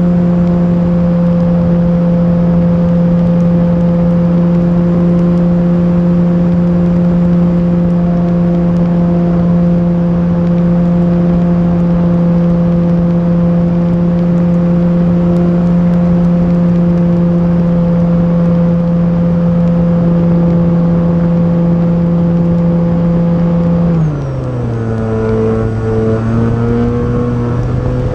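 Electric motor and propeller of an E-flite Timber RC plane, heard from a camera mounted on the airframe, running at steady high throttle with a constant hum and airflow noise. About 24 seconds in the throttle is pulled back: the pitch drops quickly and the tone then wavers at a lower setting.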